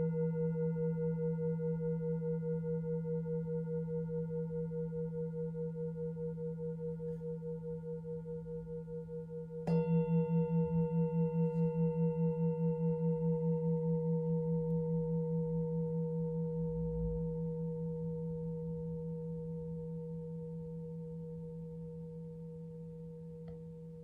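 Engraved Tibetan singing bowl ringing with a steady pulsing wobble. It is struck again about ten seconds in, swells back up, and then slowly fades.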